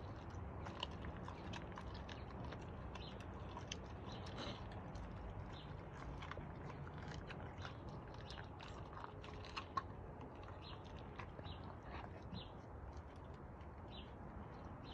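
A Doberman chewing and biting on a raw skinned squirrel: irregular clicks and smacks of its jaws and teeth on the meat and bone.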